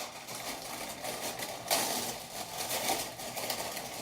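Packaging rustling and crinkling as items are handled in an opened subscription box, an irregular crackly rustle that grows louder about two seconds in.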